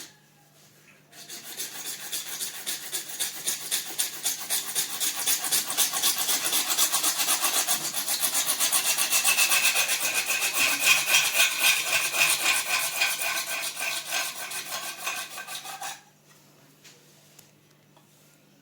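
Fast, even back-and-forth rasping strokes of a hand tool working uPVC pipe. They start about a second in, keep a steady pace for about fifteen seconds, and stop abruptly.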